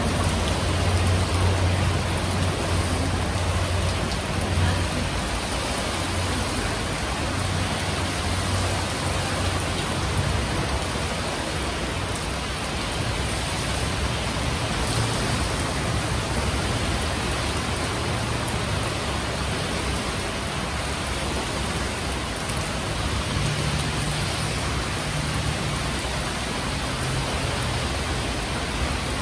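Steady rain falling, an even hiss, with a low hum underneath for the first ten seconds or so.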